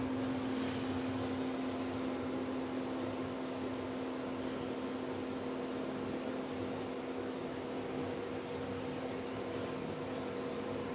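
Steady droning hum of a running machine, with a constant low tone and an even hiss that do not change.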